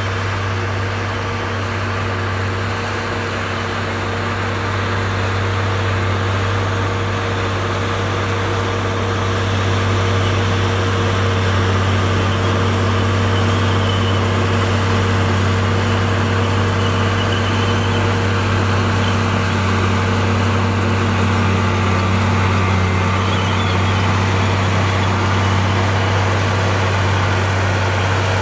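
Komatsu D58E crawler dozer's diesel engine running steadily with a deep, even hum, getting a little louder about ten seconds in.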